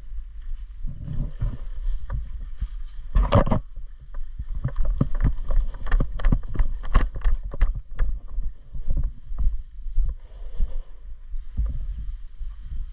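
Low rumble of wind and handling noise on the microphone, with one louder knock a few seconds in and then a run of irregular sharp clicks and knocks for about five seconds.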